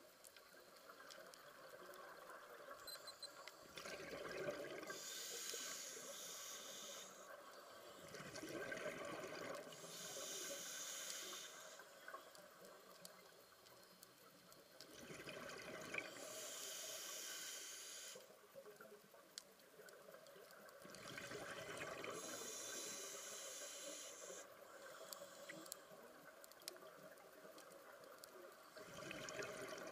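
A scuba diver breathing through a regulator underwater. A low bubbling rumble alternates with a longer hiss, in four breaths plus the start of a fifth near the end.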